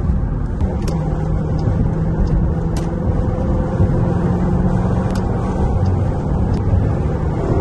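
2021 Dodge Durango R/T's 5.7-litre Hemi V8 running steadily while cruising, heard from inside the cabin with tyre and road noise.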